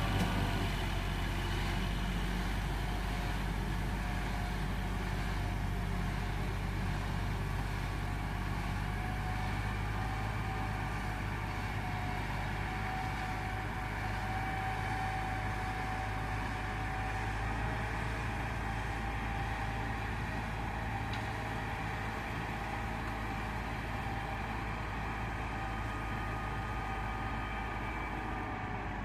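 Dump truck's diesel engine running steadily at low speed with a steady whine, as the truck creeps down a grade with its bed raised, spreading stone from the open tailgate. It grows slightly fainter near the end as the truck moves away.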